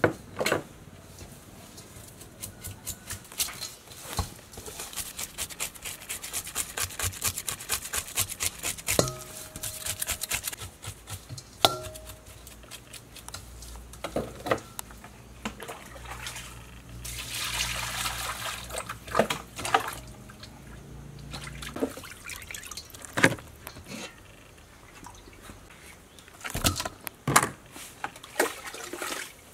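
Pieces of raw fish being rubbed with salt and washed by hand in water in a stainless steel bowl: wet splashing and squelching with many irregular clicks and knocks against the bowl, and a brief rush of splashing water a little past halfway.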